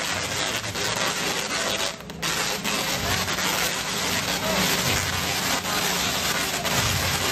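Tesla coil discharging: a harsh, crackling buzz of sparks arcing through the air. It cuts out briefly about two seconds in, then carries on.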